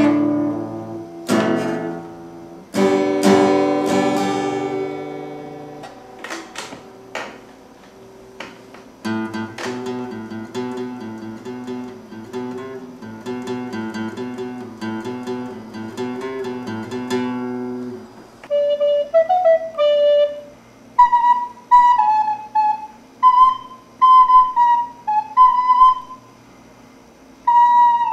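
Acoustic guitar: a few strummed chords left to ring, then a repeating fingerpicked pattern. About 18 seconds in it gives way to a wooden recorder playing a melody in short phrases of separate notes.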